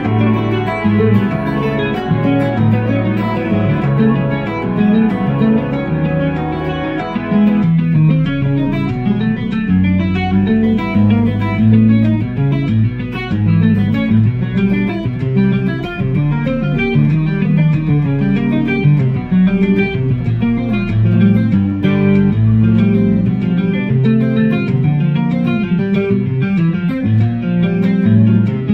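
Hollow-body electric guitar playing a study of quick picked single-note lines, over a backing track with bass notes underneath.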